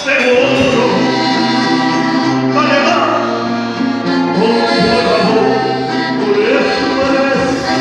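A band playing a song with several voices singing together over a steady bass line.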